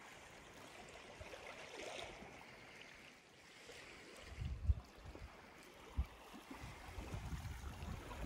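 Small waves lapping and trickling over a shallow, stony, seaweed-covered shore, with brief low rumbles of wind on the microphone about halfway through.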